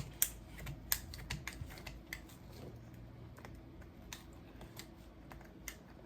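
Irregular light clicks and snips of scissors and fingers cutting and picking tangled line out of a baitcasting reel's spool, the two sharpest clicks in the first second, then fainter scattered ticks.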